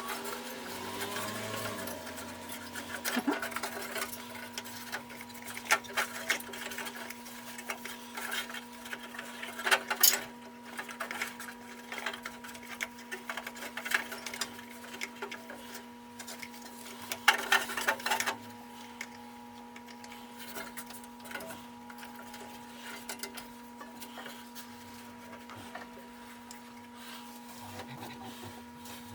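A steady mechanical hum with scattered clicks and short clattering bursts, the two loudest about ten seconds in and again around seventeen seconds in.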